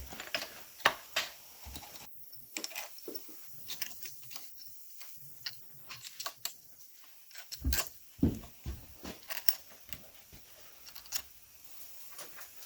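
Irregular light clicks, taps and metallic clinks of tools and engine parts being handled during engine assembly, with a few louder, deeper knocks about eight seconds in.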